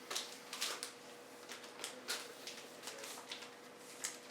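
Packaging around a replacement laptop screen being handled and opened: irregular rustling and crinkling, about a dozen short crackles.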